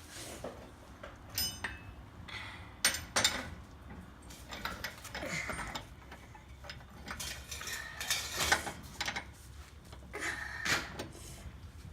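Irregular metallic clinks, clanks and scrapes of a lug wrench working the lug nuts off a car wheel.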